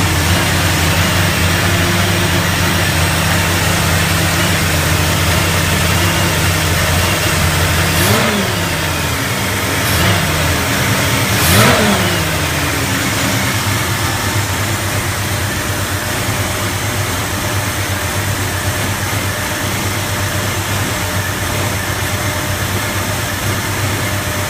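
Engine idling very roughly, blipped up briefly three times near the middle before settling back to its uneven idle.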